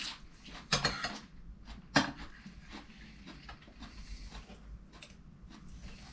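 People eating at a table: chewing and lip-smacking close by, with a few clinks of a fork and spoon on china plates, the sharpest about two seconds in.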